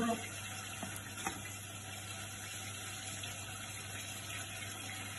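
A steady, even rushing noise with a low hum underneath, and two faint clicks about a second in.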